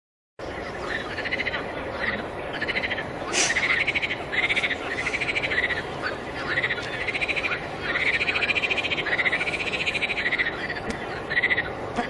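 A chorus of frogs calling: overlapping pulsed trills, each under a second long, repeating over and over. It starts abruptly about half a second in.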